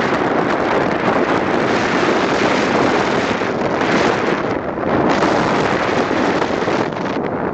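Wind rushing over the microphone of a moving car, a loud steady roar mixed with road noise.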